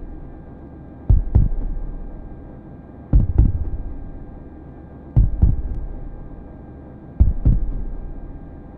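Heartbeat sound effect: a slow, deep double thump about every two seconds, four beats in all, each fading away, over a faint steady hum.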